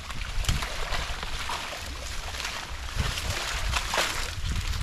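Water splashing and sloshing in irregular bursts about a second apart, over a steady low rumble.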